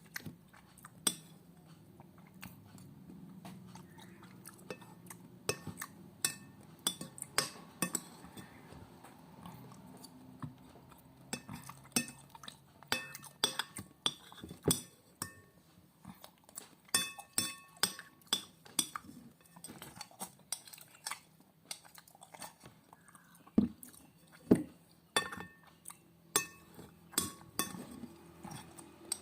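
Cutlery clinking and scraping against a plate many times at irregular intervals, some strikes ringing briefly, with chewing between them.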